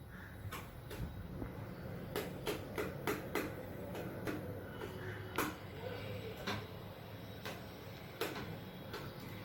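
A series of irregular light clicks and taps, roughly one or two a second, over a steady low hum.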